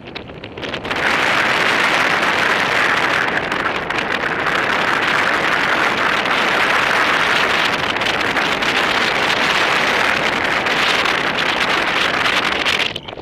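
Wind rushing over the camera microphone of a paraglider in flight, a loud, steady, unpitched roar. It is weaker for about the first second, then builds and holds until it cuts off sharply near the end.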